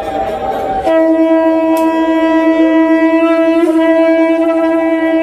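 Conch shell (shankha) blown in one long, steady note that starts about a second in, wavers briefly midway and is held past the end. A higher, rougher note sounds in the first second before it.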